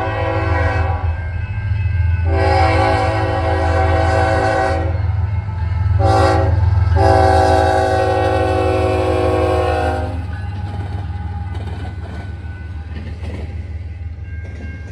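Diesel locomotive's multi-chime air horn sounding the grade-crossing signal: the tail of one long blast, then a long, a short and a final long blast, over the steady low rumble of the locomotive. After the horn stops about ten seconds in, the train rumbles on with clicking wheels.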